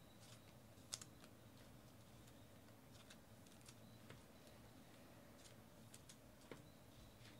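Near silence with a few faint, scattered clicks of trading cards being handled, the loudest about a second in.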